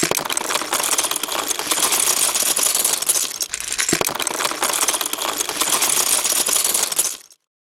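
Dense, rapid clicking and rattling of small hard objects, cutting off suddenly about seven seconds in.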